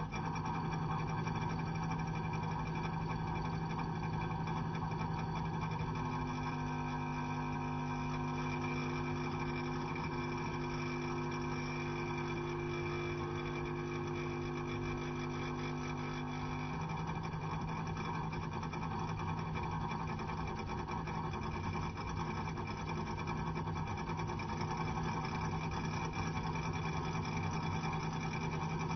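Electric meter humming and buzzing steadily. About six seconds in, a second, higher hum joins it and drops out again near the 17-second mark.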